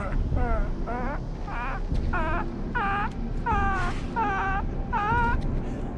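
A man's high-pitched, whining giggle: a string of about nine quick, wavering 'hee' notes that climb in pitch, over a low rumble.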